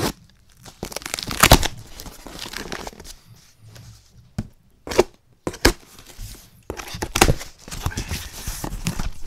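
Cardboard shipping box being opened: packing tape ripped away and the flaps pulled apart in a series of sharp rips, the loudest about a second and a half in. Cardboard and packaging rustle toward the end.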